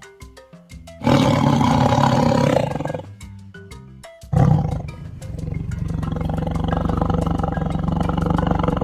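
Tiger roaring twice over soft mallet-percussion background music. The first roar comes about a second in and lasts about a second and a half. The second starts a little past four seconds in and trails off into a long, low, rumbling growl.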